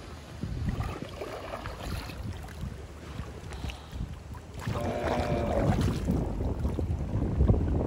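Wind buffeting the microphone on an open-water kayak, a low rumble that gets louder about halfway through.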